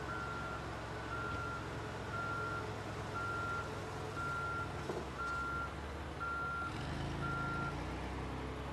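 Electronic vehicle warning beeper sounding a short, high beep about once a second, stopping near the end. A single knock comes about five seconds in, and a car engine rises low underneath near the end.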